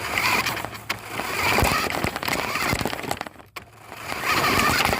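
4x4 RC Polaris car driving over rough ground, its motor and wheels heard up close from a phone mounted on it, in two surges with a brief cut about three and a half seconds in.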